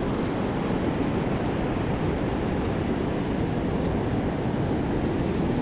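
Surf washing onto a sandy beach, a steady rushing noise, with wind rumbling on the microphone.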